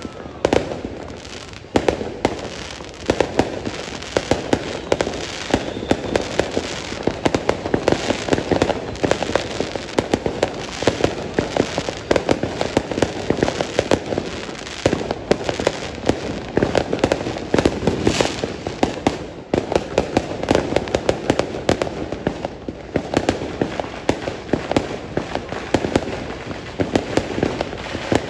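Fireworks going off in a dense, rapid barrage of bangs and crackles, with a couple of brief lulls in the second half.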